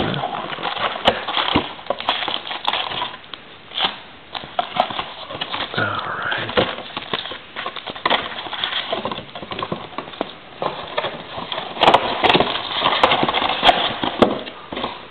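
Trading-card pack wrappers crackling and rustling as the packs are cut open one after another and handled, with many irregular sharp clicks and taps.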